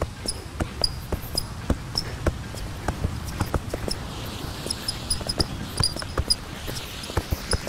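Football being juggled: short, dull thuds of the ball bouncing off foot, knee and thigh, about three touches a second in an uneven rhythm, over a low steady rumble.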